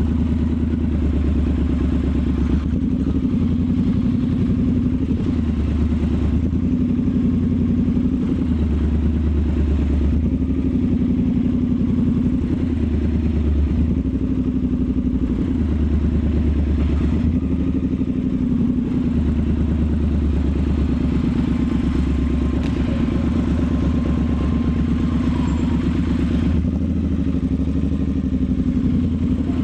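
Triumph Scrambler 1200's parallel-twin engine running under way, heard onboard, its note shifting every few seconds with throttle and gear changes.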